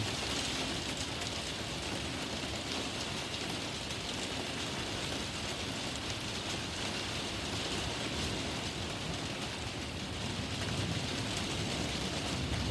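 Steady rain falling during a thunderstorm, an even hiss of drops with no pauses.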